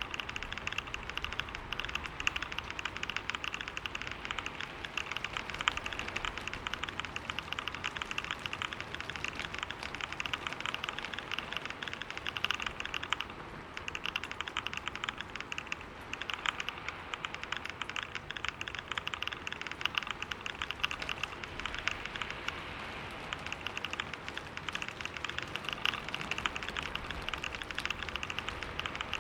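Fast, continuous typing on a computer keyboard: a dense run of key clicks with a brief pause about thirteen seconds in.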